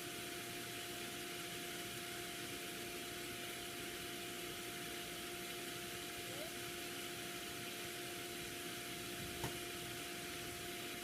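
Steady hiss with a low, even hum, and a single faint knock about nine and a half seconds in.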